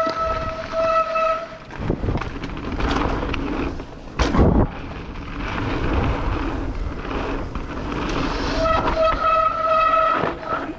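Mountain bike disc brakes squealing in a steady high-pitched tone, once at the start for about a second and a half and again for about two seconds near the end. In between is the noise of tyres and wind while riding, with a sharp thump a little past four seconds in.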